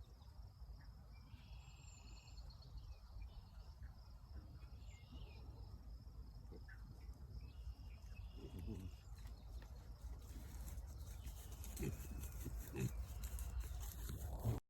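Crickets chirping over a low wind rumble on the microphone, with a few short pig grunts in the second half.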